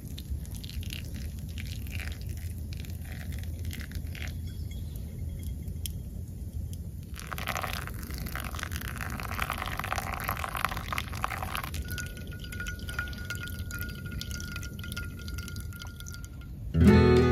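Hot water poured in a thin stream from a kettle onto coffee grounds in a paper pour-over filter, trickling and dripping through, louder for a few seconds in the middle. Music comes in suddenly near the end.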